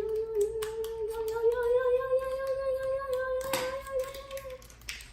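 A child humming one long held note that slowly rises in pitch and stops shortly before the end, over scattered light clicks and snips of scissors cutting plastic packaging.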